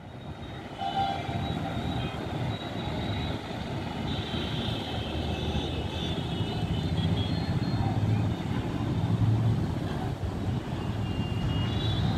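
Outdoor city and railway-yard din: a steady low rumble of trains and traffic, with short horn-like tones about a second in and again a few seconds later.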